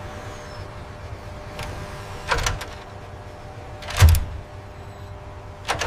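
Steady machinery hum with three mechanical clunks, about two, four and nearly six seconds in; the one around four seconds is the loudest, with a deep thud.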